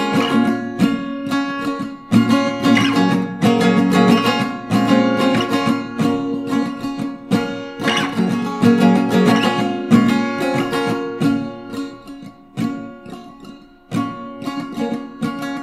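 Acoustic guitar strumming chords in an instrumental passage of an indie song. The playing thins out and gets quieter about twelve seconds in, then a fresh strum comes in near the end.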